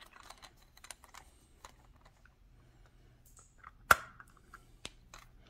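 Light clicks and ticks of a small screwdriver and screws against the plastic case of a Stratus 2S ADS-B receiver as its battery-half screws are worked out. One sharp click about four seconds in, and a smaller one about a second later.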